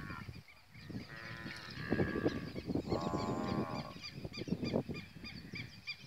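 Farm animals calling in a pasture: a drawn-out call about a second in and a longer one about three seconds in, over many small birds chirping.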